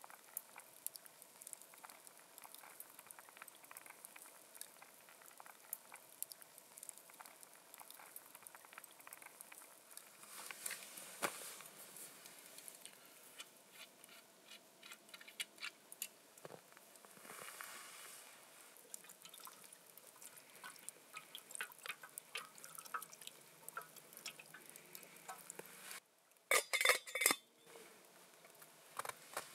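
Soft crackling and small clicks from a campfire with a pot of fish soup simmering on it, mixed with light metal clinks of a cup and cookware being handled. A little before the end comes a short run of louder knocks and clatters as a pot is handled.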